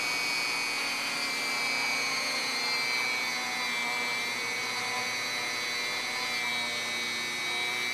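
Steady high-pitched whine of a small motor, its pitch wavering slightly.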